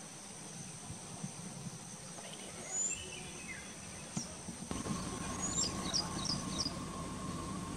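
Natural ambience of a steady, high insect drone with scattered short bird chirps, including a quick run of chirps near the end. About two-thirds of the way in, the background changes abruptly and a steady lower hum joins.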